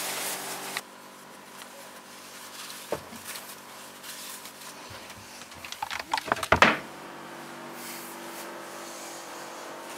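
A shirt rustling as it is pulled on over the shoulders, then a quick clatter of knocks about six seconds in, over a faint steady hum.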